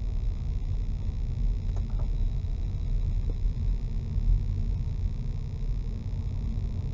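Car driving slowly, heard from inside the cabin: a steady low rumble of engine and road noise, with a few faint knocks about two and three seconds in.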